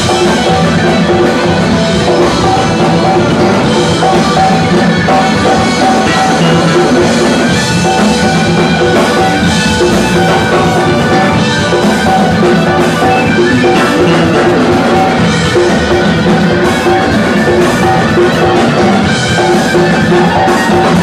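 A live funk/R&B band playing an instrumental passage at full volume, with drum kit, congas and electric guitars.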